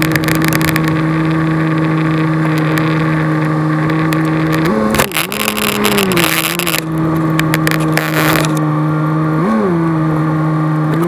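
A 1997 Dodge Ram's 5.9 Cummins inline-six turbodiesel running as the truck drives slowly, heard from inside the cab. Its pitch rises briefly about five seconds in and again near nine and a half seconds. A rough hiss runs from about five to eight seconds in.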